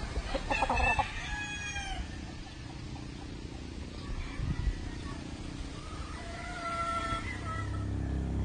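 Rooster crowing: one long crow with a falling tail about half a second in, and a second crow about six seconds in.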